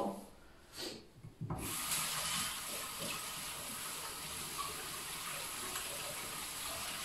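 Kitchen tap turned on about a second and a half in, then water running steadily into a stainless steel sink as raw chicken legs are rinsed under it.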